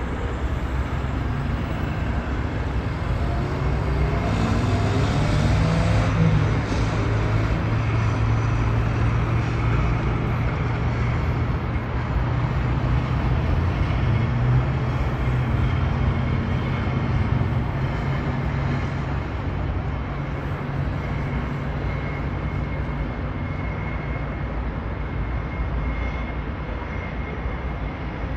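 Dense city road traffic: a steady low drone of engines and tyres from slow-moving cars, trucks and buses, with one engine rising in pitch a few seconds in.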